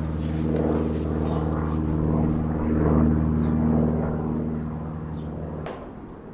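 A steady low engine drone with several even tones, cutting off suddenly with a click near the end.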